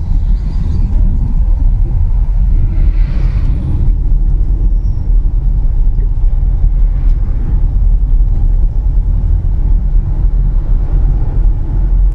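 Steady low rumble of a vehicle travelling along a highway: engine and road noise, with a brief hiss about three seconds in.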